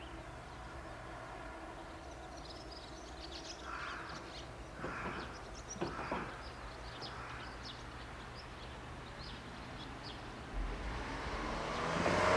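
Birds calling in the open air, a scatter of short chirps with a few louder calls. About two-thirds of the way through a train's low rumble starts and grows steadily louder as it approaches.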